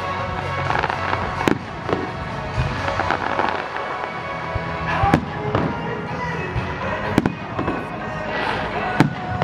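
Fireworks shells bursting overhead: about four sharp bangs a couple of seconds apart, the loudest near the end with a brief crackle just before it, over steadily playing music.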